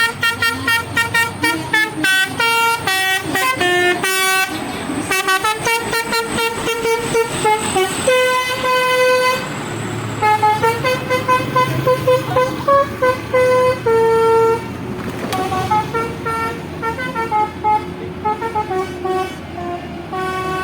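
Bus-mounted Basuri 'telolet' musical air horn playing a rapid tune of short notes, with a few longer held notes, over the low hum of the bus engine.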